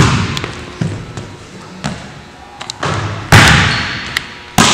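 A basketball bouncing on a hardwood gym floor, each bounce echoing in the large hall. There are a few lighter bounces at first, then two loud impacts in the last second and a half.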